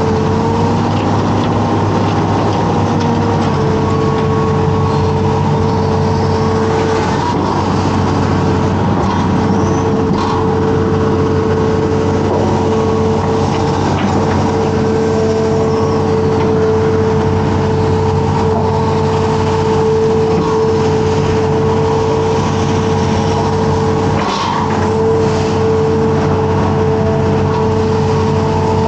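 Amphibious excavator's diesel engine running steadily under working load, with a steady whine held over it, heard from the operator's cab.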